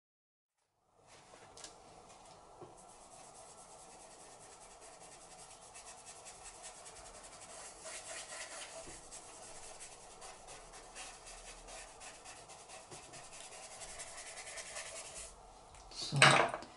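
Drawing tools rubbing and scratching across drawing paper in many short, quick strokes as fur is worked into a charcoal drawing. A short, louder sound comes near the end.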